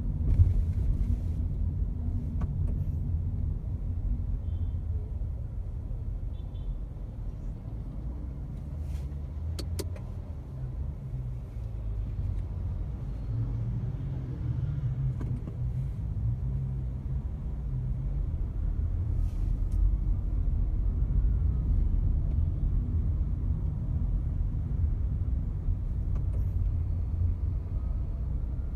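Low, steady rumble of a car creeping in stop-and-go city traffic, heard from inside the cabin, with a few brief clicks, the sharpest about half a second in.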